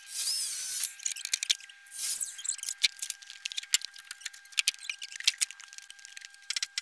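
Scattered clicks, taps and rattles of a sliding miter saw and a wooden decking board being handled, with two short louder scraping rushes, one near the start and one about two seconds in.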